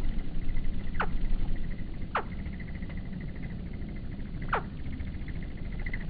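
Hummingbird calls slowed to one fifth speed: three short squeaks that slide steeply down in pitch, over a steady fast ticking trill and a low rumble.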